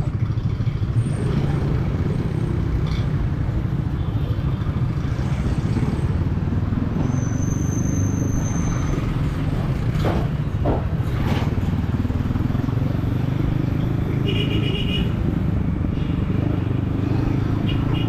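Yamaha XSR155's single-cylinder engine running steadily under way, heard from the rider's helmet with the road and traffic around it. A short high tone sounds about halfway through, and a brief pulsing high sound comes near the end.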